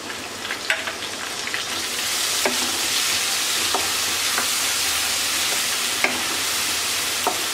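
Onion paste sizzling in hot oil in a karahi while a wooden spatula stirs it, with light scraping ticks from the spatula. The sizzle swells over the first two seconds, then holds steady.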